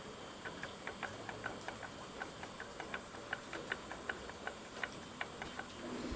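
Rapid series of faint metallic clicks, about five a second, from a Suzuki Address 110 connecting rod rocked by hand on its Nice Rich crankshaft. The clicks are play knocking in the big-end bearing at the lower rod journal, the source of the engine's knock.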